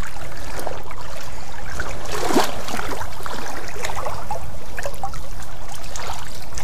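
Water sloshing and swishing around the legs of someone wading through shallow water, with a louder splash a little over two seconds in.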